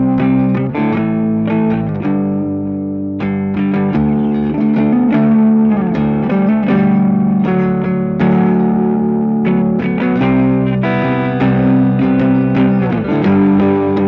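Mensinger Birdy electric guitar played through a Boss ME-90 multi-effects unit: a lead line of picked notes with string bends and held notes.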